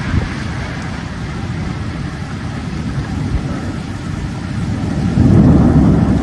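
Heavy rainstorm noise: a steady rush of rain and wind on the microphone, swelling into a louder low rumble about five seconds in.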